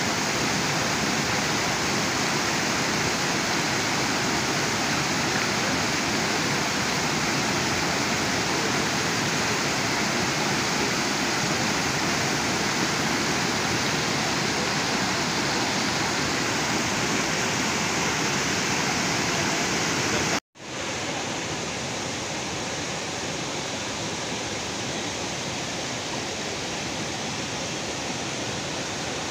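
Steady rush of a small waterfall pouring over rock ledges into a pool. It cuts out for an instant about two-thirds of the way through and carries on slightly quieter.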